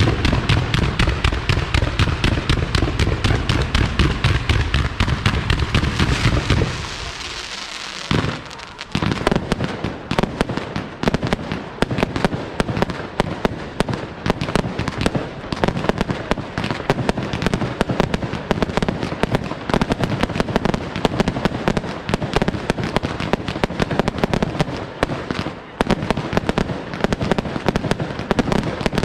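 Aerial fireworks display: a dense run of deep booms with crackle for the first six seconds, a short lull, then continuous rapid-fire bangs and crackling, many reports a second.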